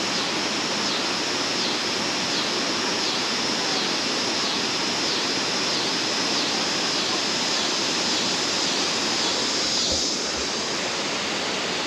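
Spring water rushing and splashing in a steady, loud flow, with a high pulsing call repeating about three times every two seconds above it.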